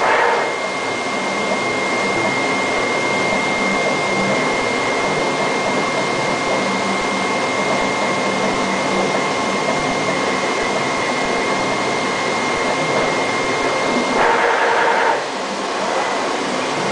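Flatbed cutting plotter running while kiss cutting: a steady fan-like hiss with a thin high whine throughout, and a louder burst of motor whirring about two seconds before the end as the cutting head moves along the gantry.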